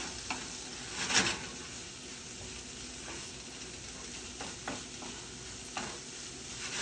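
Cauliflower rice stir fry sizzling in a steel skillet while a wooden spatula stirs it, with a few scraping strokes against the pan. The loudest stroke comes about a second in.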